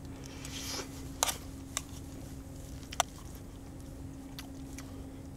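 Someone eating rice: about four short, sharp clicks of utensils against the dish, with soft mouth sounds, over a faint steady hum.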